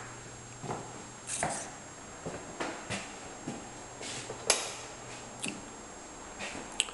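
Footsteps on a hardwood floor: a string of irregular soft knocks and clicks, the sharpest about four and a half seconds in, over a low steady hum.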